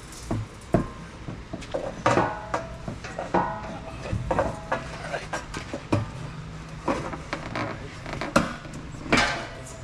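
Irregular knocks and clanks of metal parts and tools being handled, several ringing briefly.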